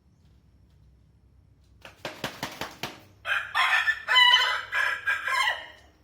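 A rooster beats its wings in a quick run of sharp claps, then crows once, a single long cock-a-doodle-doo of about two and a half seconds.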